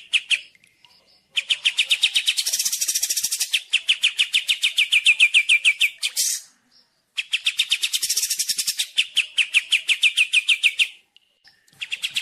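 Songbird song from a kapas tembak and cililin masteran recording: long runs of rapid, evenly repeated sharp notes, broken by three short pauses.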